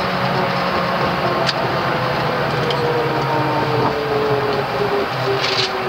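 Steady rumble and hiss on the flight deck of a Boeing 737 MAX rolling slowly along the runway after landing, with a whine that falls slowly in pitch and a couple of faint clicks.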